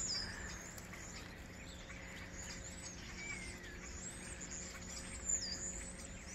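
Wild birds chirping: a series of short, high, sliding calls, with one lower falling call about three seconds in, over a faint steady background hum.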